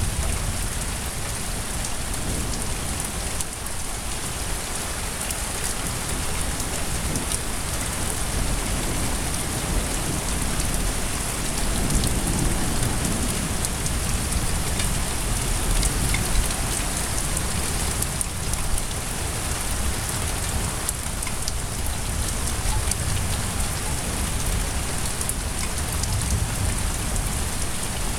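Steady heavy rain pouring down during a thunderstorm, with a low rumble of thunder swelling about twelve seconds in.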